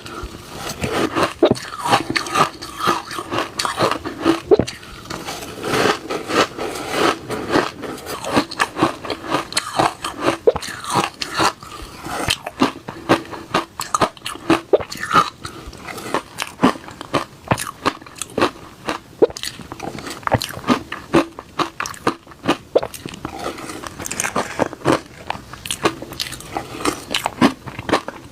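A person biting and chewing reshaved refrigerator ice, a continuous run of crisp crunches, many each second.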